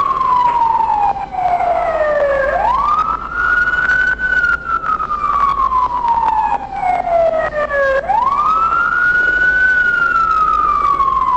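Police car siren in a slow wail, each cycle sweeping quickly up, holding briefly, then falling slowly over about four seconds; it rises twice.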